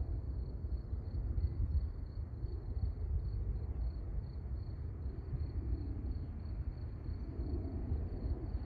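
Outdoor ambience: a steady, high-pitched insect trill over a continuous low rumble.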